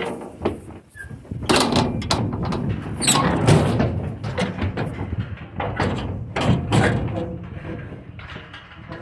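Irregular knocks, clanks and scuffs of cattle moving about and bumping against metal pen or trailer panels.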